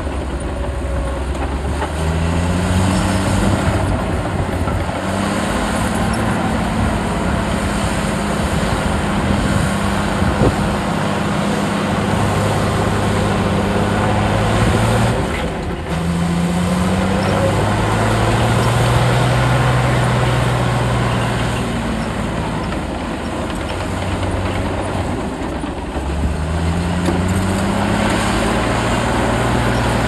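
Heavy diesel engines of bulldozers and a dump truck at work. The pitch rises as an engine revs up about two seconds in, again around fifteen seconds and near the end, and eases back down between.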